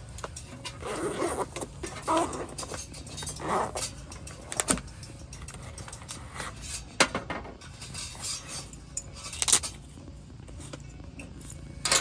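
Scattered clinks and knocks of camp dishes and metal utensils being handled, with a faint steady low hum underneath.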